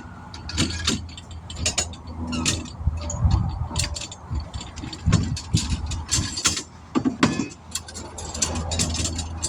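Irregular metallic clanks, knocks and rattles of tire-changing work on a wheel, over a steady low hum.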